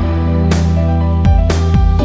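Background music: a steady beat with a deep bass line and plucked, guitar-like notes.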